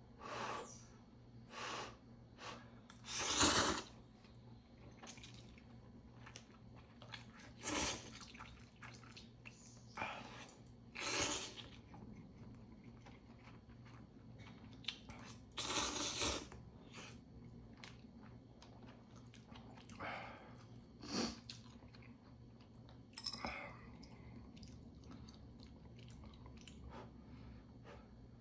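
A person slurping instant ramen noodles and chewing them, close to the microphone. There are about nine loud slurps spaced irregularly, with the loudest about three and a half seconds in, and quieter chewing between them.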